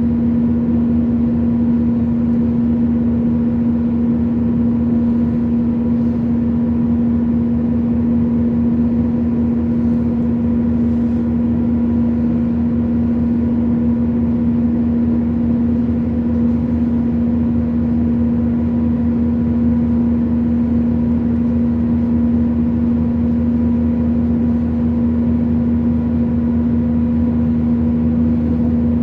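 Train running at a steady speed, heard from aboard: a constant drone with one strong steady hum over low rumbling running noise.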